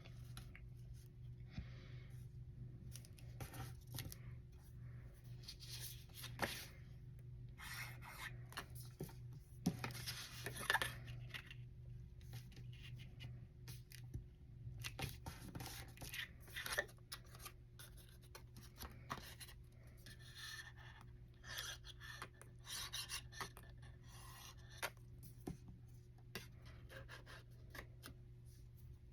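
Faint rustling, rubbing and light tapping of cardstock as die-cut paper box pieces are folded, pressed and glued together, over a steady low hum.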